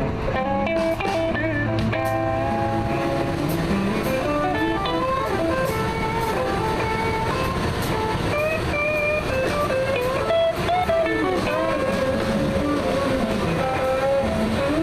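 Amplified electric guitar playing a bluesy lead line full of bent and sliding notes over a rock band, during a sound check.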